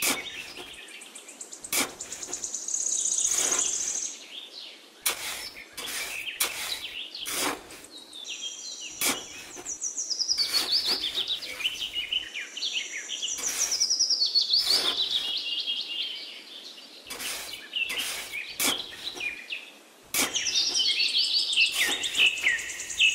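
Small birds chirping and twittering in quick, rapid trills, loudest around the middle and near the end, with scattered sharp clicks and taps.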